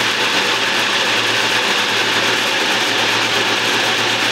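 NutriBullet blender motor running steadily under load, blending chicken liver and hot dog chunks into a thick liquid chum.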